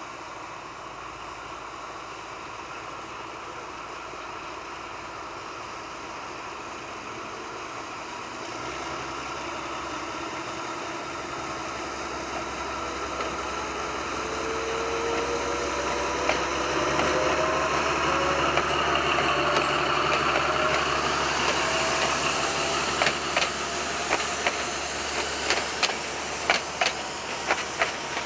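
Henschel-built narrow-gauge diesel locomotive pulling away with a passenger train. Its engine grows louder as it nears and passes, and the pitch rises as it gains speed. In the last few seconds the wheels clack over the rail joints in a quick, regular rhythm.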